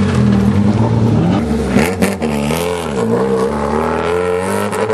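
Renault Clio R3 rally car's two-litre four-cylinder engine revving hard under acceleration, its pitch rising and falling several times, with sharp drops about two and three seconds in.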